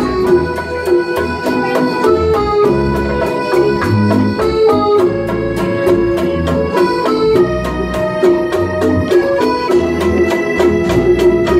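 A rondalla playing an instrumental piece: strummed guitars and plucked mandolin-type strings over a sustained electronic keyboard line, with hand drums keeping a steady rhythm.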